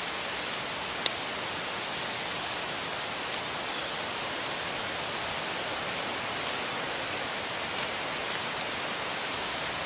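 Steady rushing of a stream running high after a hurricane, with one sharp click about a second in.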